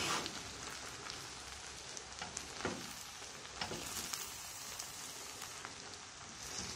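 Spoon stirring cooked bulgur pilaf in a metal pan, the grains rustling and the spoon clicking against the pan now and then, over a steady faint sizzle from the hot pan.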